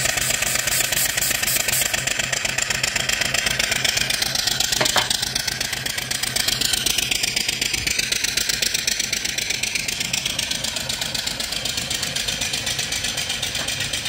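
Vertical single-cylinder steam engine, 3-inch bore by 4-inch stroke, running with its cylinder drain cocks open: steam hisses out in a quick even chuff with each stroke, blowing condensed water out of the cylinder.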